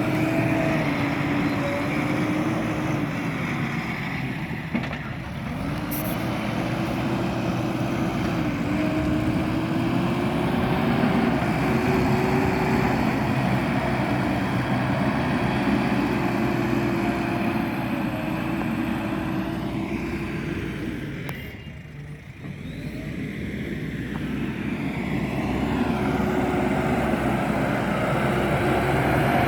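JCB digger's diesel engine running under load, its pitch wavering as the machine works. The sound falls away briefly about five seconds in, and more deeply about two-thirds of the way through, before coming back up.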